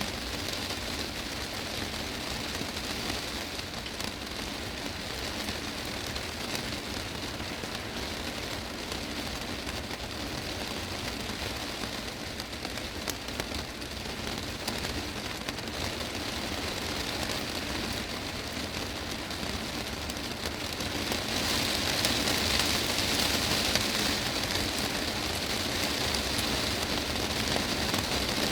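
Heavy rain drumming on a glass greenhouse roof: a dense, steady patter of drops on the panes. The downpour grows heavier about two-thirds of the way through.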